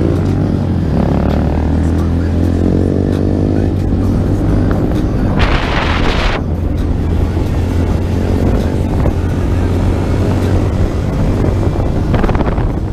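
Motorcycle engine running while riding, its pitch rising and falling with the throttle in the first few seconds, then holding steady, with wind on the microphone and a gust of wind noise about five seconds in.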